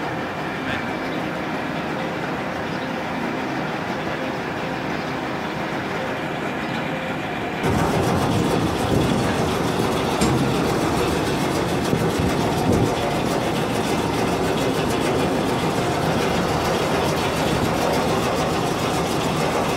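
Comofra horizontal feed mixer running empty, its augers turning in the tub: a steady mechanical drone and rattle. It becomes abruptly louder about eight seconds in.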